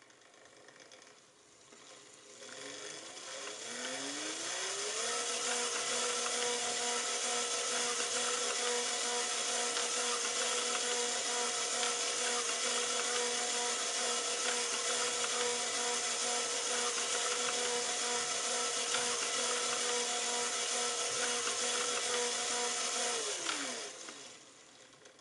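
Vacuum cleaner motor spinning up with a rising whine. It runs steadily, whining over a rush of air, then winds down and stops near the end.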